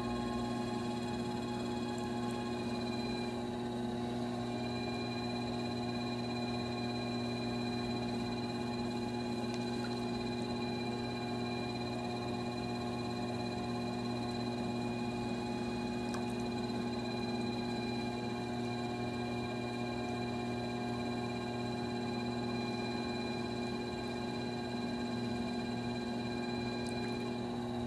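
Electric potter's wheel running: a steady motor hum with a thin high whine, which briefly falters about three to four seconds in.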